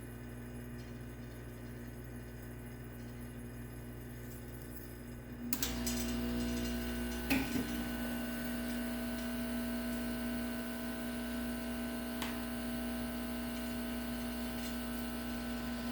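A steady electrical hum from workbench equipment. It switches on about five and a half seconds in, jumps to a louder, even tone and holds, with a couple of faint clicks.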